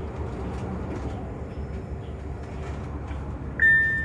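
Interior of a city transit bus under way: a steady low rumble of engine and road noise. Near the end a single loud electronic chime tone sounds suddenly and is held for about a second.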